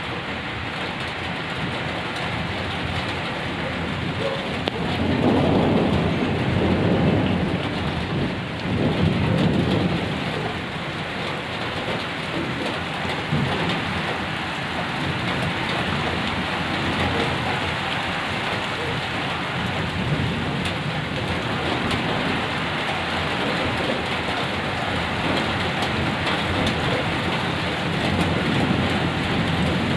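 Steady rain falling throughout, with a long low rumble of thunder about five seconds in that swells twice before fading back under the rain.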